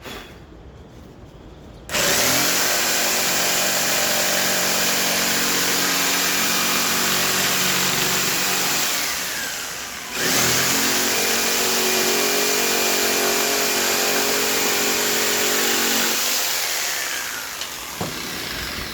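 An electric woodworking power tool runs twice. Each time it starts abruptly, runs steadily for about seven seconds and then winds down with a falling pitch, the first run ending near the middle and the second near the end.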